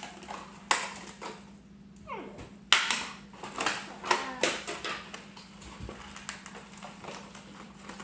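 Plastic packaging and toy parts handled with a string of clicks and knocks, with one short falling meow about two seconds in, typical of an electronic toy kitten's voice.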